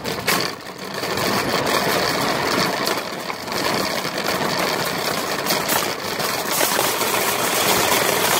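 Wire shopping cart rolling over parking-lot pavement, its wheels and loaded basket rattling steadily.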